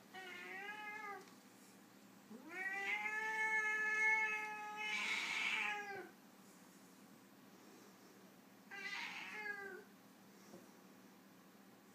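Foreign White (white Siamese-type) cat yowling in a standoff with another cat: three drawn-out, moaning threat yowls. The first is short, the second is long and loud and turns harsh and noisy at its end, and a third short one comes about nine seconds in.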